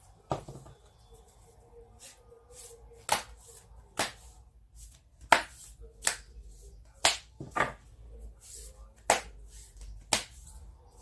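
A thick deck of oracle cards being shuffled by hand, with sharp snaps of the cards striking together at irregular intervals, roughly one a second.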